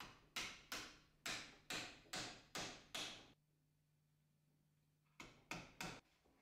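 Hammer driving a nail into a wooden frame: about eight quick strikes over three seconds, then a pause and three more knocks near the end.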